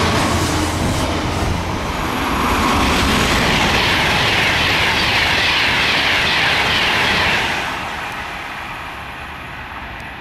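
Freight train passing at speed, with a steady rush of wheels on rail from its wagons. The diesel locomotive's low engine note dies away in the first second or two, and the train noise fades over the last few seconds as the wagons pass.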